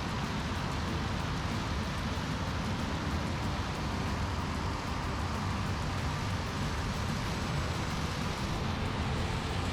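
John Deere S780 combine, with its 6-cylinder 13.5-litre diesel engine, running steadily while harvesting corn: an even machinery rumble with a hiss over it.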